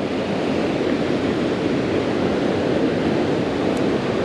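Steady rush of ocean surf, an even wash of noise with no single wave standing out.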